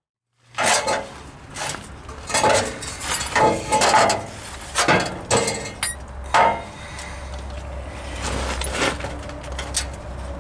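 About half a second of silence, then irregular metal knocks and clanks as car exhaust pipe sections are handled and shifted into place under the car. The knocks thin out after about seven seconds into softer rubbing with a few clicks.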